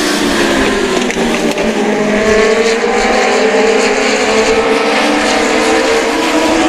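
Several US Legend Cars racing around a short oval, their Yamaha four-cylinder motorcycle engines overlapping at racing speed. The engine notes rise and fall in pitch as the cars go through the turns.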